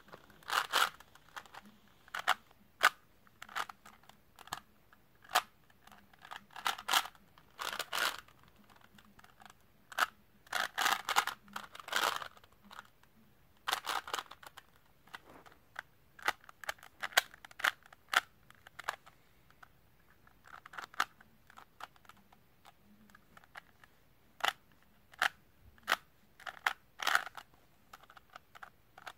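Plastic Rubik's Cube being twisted by hand: irregular clicks and short runs of clattering clicks as the layers turn, with brief pauses between.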